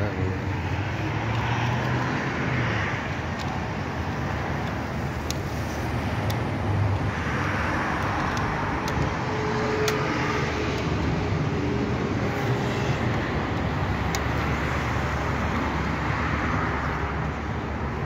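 Steady road traffic, swelling and fading as vehicles pass, with a few faint clicks over it.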